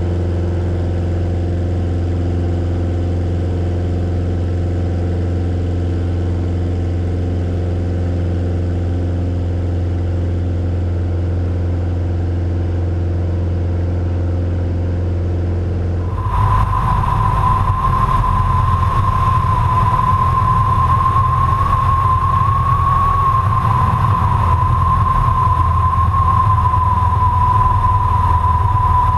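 Cessna 140 floatplane's 135-hp piston engine and propeller droning steadily at cruise, heard inside the cockpit. About halfway through, the sound cuts to outside the airplane: louder, with a rushing noise and a steady high whine from the engine and propeller as the floatplane runs on the water.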